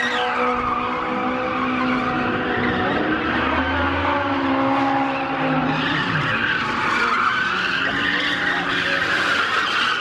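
Cars drifting and spinning donuts, tyres squealing continuously over their running engines.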